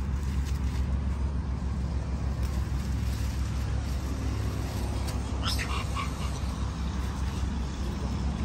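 Steady low rumble of wind buffeting the microphone, with a brief high-pitched animal squeal about five and a half seconds in.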